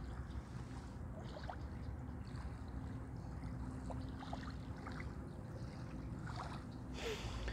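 Outdoor ambience: a steady low rumble with a few faint short high sounds, and a brief rustle against the clip-on microphone near the end.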